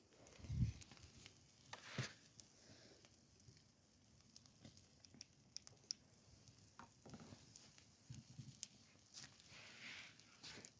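Faint crackling of a hardwood campfire, with scattered sharp pops and ticks, and one low thump about half a second in.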